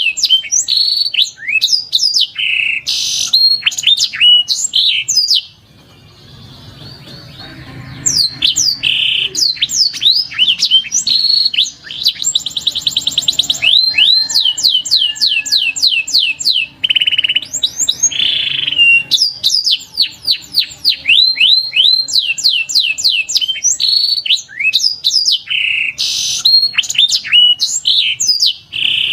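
Canary song: fast runs of repeated high, falling whistled notes and rapid trills, with a pause of a couple of seconds about six seconds in.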